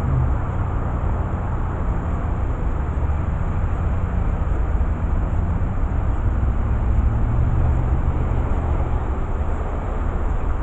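Steady low engine rumble of a running motor vehicle, its pitch drifting slightly, over a constant noisy background with a faint high whine.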